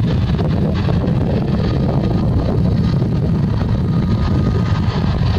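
Airbus A320neo's jet engines running at idle as it taxis onto the runway to line up, a steady noise heavy in the low end, with wind on the microphone.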